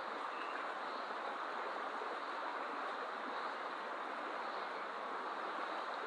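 River water rushing steadily past, an even, unbroken flow sound.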